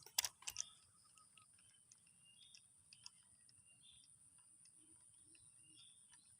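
A few sharp clicks in the first second, then faint scattered ticks over near silence: a fishing reel being worked as a lure is cast and retrieved.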